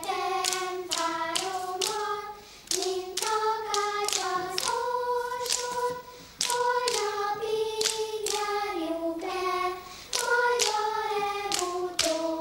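A group of children singing a folk melody in unison on held, stepwise notes, over a steady clapped rhythm: a rhythm ostinato accompanying the song, a two-part exercise.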